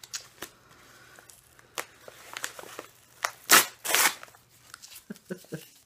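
A mailing package being torn open by hand: scattered crinkling and crackling of packaging, with two loud ripping tears about three and a half seconds in.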